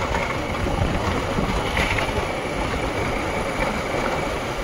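Motorcycle riding along at an easy road speed of about 30–35 km/h: its engine running steadily under a rush of wind noise on the microphone.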